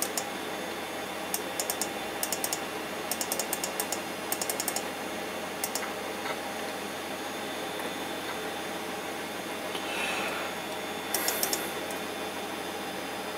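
Computer mouse button clicking in quick runs of several clicks at a time, over a steady background hiss.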